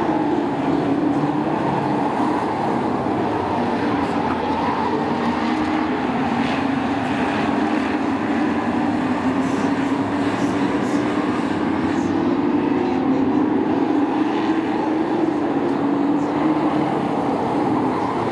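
Race truck engines running on the track in a pack, a loud steady drone whose pitch wavers slightly up and down as they circle.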